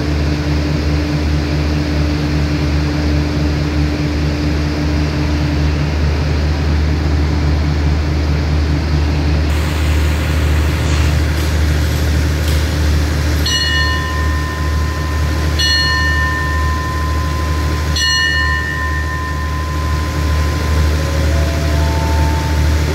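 Steady low hum of a standing diesel-hauled passenger train, its engines idling at the platform. About two-thirds of the way in, three bell-like rings sound roughly two seconds apart, each fading over a second or two.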